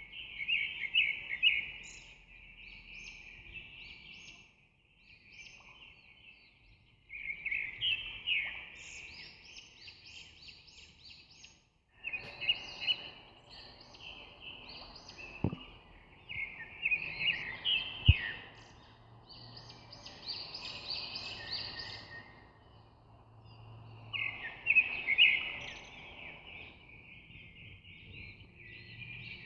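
Small birds chirping and twittering in quick clusters of notes every few seconds, with two sharp clicks about halfway through.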